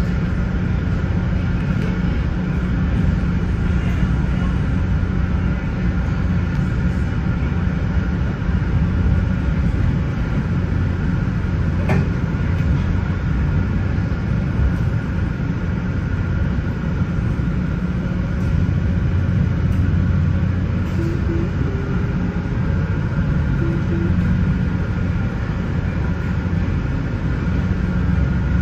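A train's steady, continuous rumble with a constant low hum and a thin steady tone above it.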